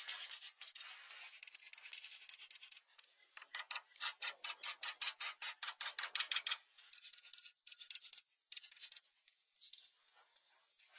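Oil pastel rubbed quickly back and forth on paper while colouring in, about six scratchy strokes a second. The strokes come in runs with short pauses and are loudest from about four to six and a half seconds in.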